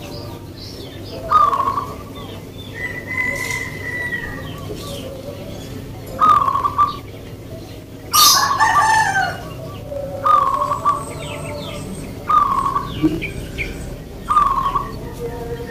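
Caged zebra doves (perkutut) cooing: short rolling coo phrases repeated every one to two seconds, with a louder, longer call about eight seconds in and a high steady whistle-like note a few seconds in.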